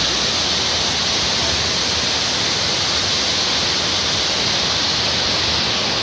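Waterfall: falling water rushing in a steady, unbroken noise.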